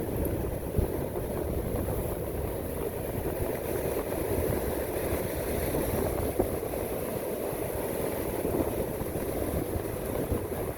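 Wind on the microphone over ocean surf: a steady low rumbling noise with a couple of brief knocks.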